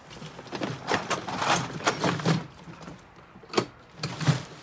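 Footsteps on grass, then a Gorilla four-wheeled poly dump cart being wheeled and tipped: a run of short knocks and rattles with plastic rustling, and a sharp knock about three and a half seconds in.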